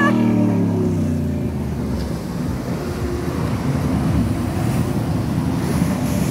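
Jet ski engine passing close by, its note falling as it pulls away, then a steady rumble of the engine and churned water.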